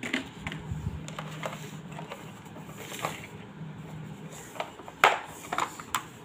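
Handling noises: light clicks and taps as a plastic tray, a paintbrush and a metal poster-colour tin are picked up and moved, with a sharper clatter of clicks near the end as the tin's metal lid is opened. A faint steady low hum runs underneath.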